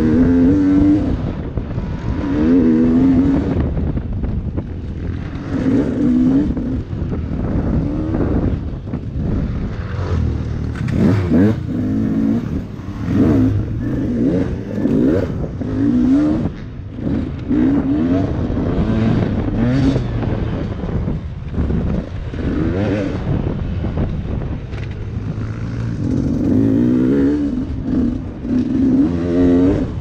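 Dirt bike engine revving up and backing off over and over, in short repeated rises in pitch as the throttle is opened and closed.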